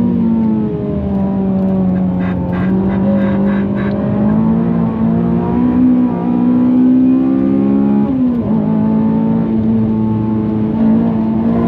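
Honda Civic Type R FN2's K20 four-cylinder engine running at high revs under hard driving. Its pitch drops about half a second in and dips again just after eight seconds, with a run of short, regular stuttering pulses from about two to four seconds in.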